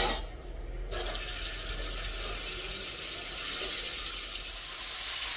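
Food sizzling in hot oil in a pan. The sizzle starts abruptly about a second in and grows louder toward the end.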